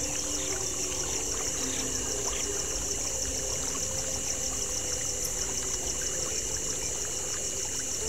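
Creek water flowing with a steady trickling rush, under a continuous high pulsing trill.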